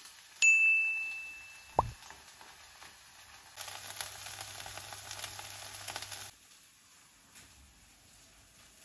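A single bright ding that rings for about a second, then a short downward swoop. Then about two and a half seconds of food sizzling in a hot frying pan, which starts and cuts off abruptly.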